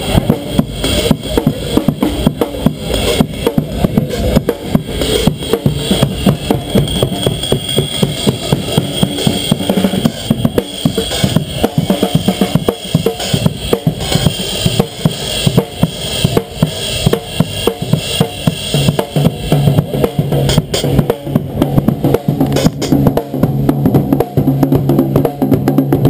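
Drum kit played by a street drummer in a dense, fast groove: rapid snare and bass drum strokes with cymbals, without a break. A low, steady tone sounds under the drums for the last several seconds.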